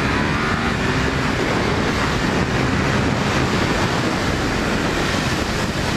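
2017 Ducati Supersport 939's 937 cc Testastretta V-twin running steadily with the bike under way, mixed with a constant rush of wind and road noise.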